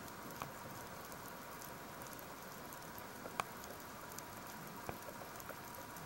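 Underwater ambience picked up through a camera housing: a steady hiss with a faint steady tone and scattered sharp clicks, the loudest about three and a half seconds in.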